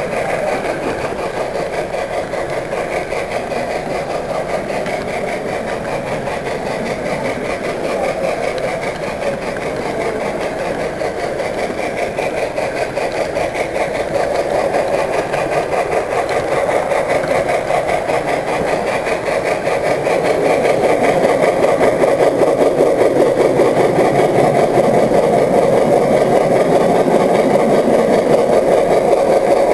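Model train running on the layout: a steady mechanical whir of its motor and wheels rolling on the track, picked up from a camera riding on the train. It grows louder about two-thirds of the way through.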